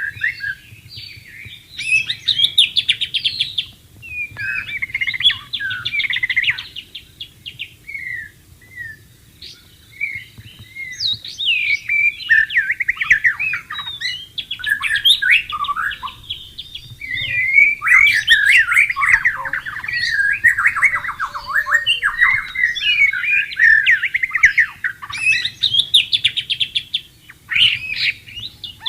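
White-rumped shama singing a long, varied song of rich whistles, slurred notes and fast trills, phrase after phrase, with short pauses about four seconds in and again around eight to ten seconds in.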